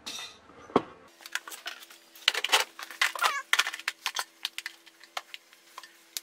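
Irregular clicks, knocks and clatter of tools and hard objects being handled on a workshop bench, over a faint steady hum.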